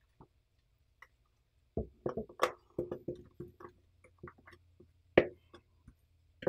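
Wooden spoon stirring dry flour mix in a large glass bowl, knocking and scraping against the glass in short, irregular taps, several a second, from about two seconds in. A faint steady low hum runs underneath.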